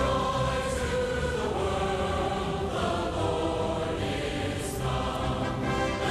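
Background music with a choir singing held chords.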